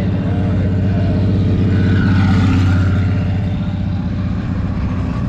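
A car engine running close by, its low rumble growing louder about two seconds in and easing off again.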